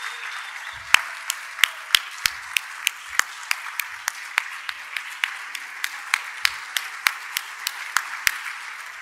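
Audience applauding. Over it, one person's loud, sharp hand claps close to the microphone, about three a second, start about a second in.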